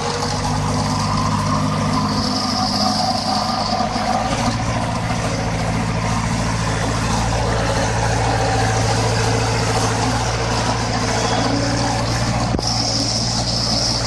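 Piggyback truck-mounted forklift's engine running steadily as the forklift drives with a load. Its note shifts slightly about four seconds in, and there is a single sharp click near the end.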